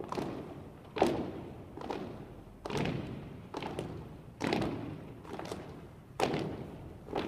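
A drill team's stomps and rifle strikes on the floor in unison: sharp thuds about once a second, echoing in a large hall.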